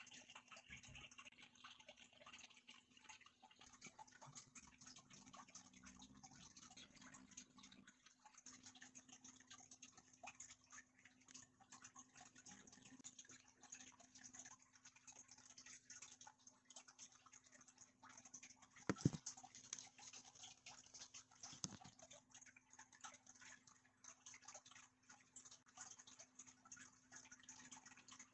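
Near silence: faint room tone with a steady low hum and light crackling, broken by one soft knock about nineteen seconds in and a smaller one a few seconds later.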